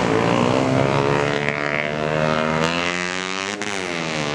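Komatsu PC200 excavator's diesel engine running under load, its pitch sinking and rising again about three and a half seconds in.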